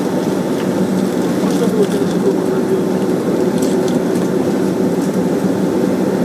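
Cabin noise of a Boeing 767-300ER taxiing: its jet engines running at taxi thrust as a steady drone with a level low hum.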